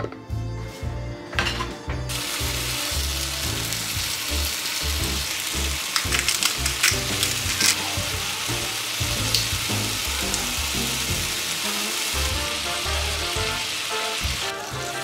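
Bean sprouts sizzling as they fry in a frying pan. The sizzle starts about two seconds in and fades near the end, with a few sharp clicks in the middle.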